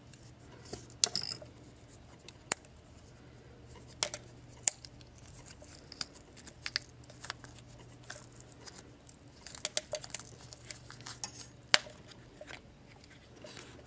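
A rubber sleeve being slit with a razor knife and peeled off a small air cylinder: scattered small clicks, scrapes and short tearing sounds, busiest about a second in and again in the last few seconds.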